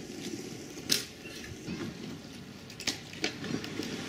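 A few sharp knocks and clatters of debris being handled while a shed is torn down. The loudest comes about a second in, with two more close together near three seconds.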